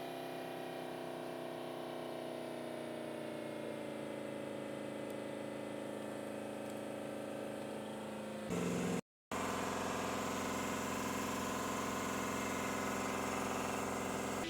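Vehicle engine idling steadily, its speed easing down slightly over the first few seconds. After a short break about nine seconds in, it idles on at a steady pitch.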